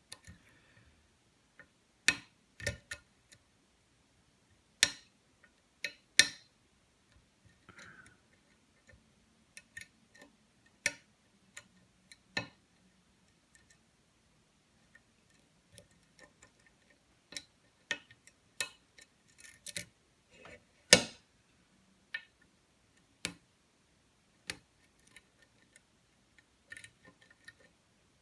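Sharp metal clicks from a lock pick working the pins of a challenge lock while single-pin picking, irregular and spaced about a second or two apart, with fainter scraping ticks between them.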